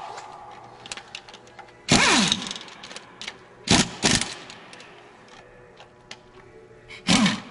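Cordless power driver run in short spurts, running bolts into the ECM's mounting on a Detroit Diesel Series 60 block. The longest burst comes about two seconds in and winds down in pitch as the trigger is released. Two quick bursts follow a couple of seconds later, and another comes near the end.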